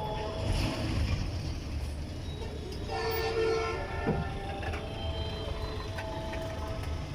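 Road traffic rumbling, with long, steady vehicle horns sounding, several tones at once, strongest about three seconds in.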